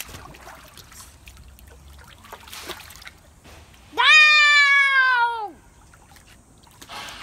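A child's high-pitched squeal, held for about a second and a half about four seconds in, sliding down in pitch as it ends. Faint water splashing sits beneath it.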